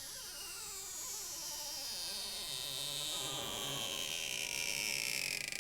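Stretch-release adhesive strip being pulled out from under an iPhone 6 Plus battery, giving a continuous buzzing squeal that falls steadily in pitch as the strip stretches and lets go.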